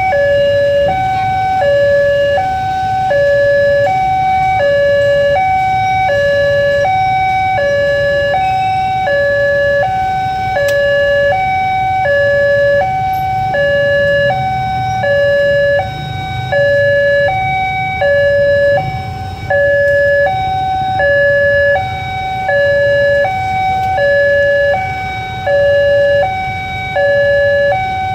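Railway level-crossing warning alarm sounding a steady two-tone hi-lo signal, switching between two pitches about once a second, with the barrier down and the red light on: a train is approaching.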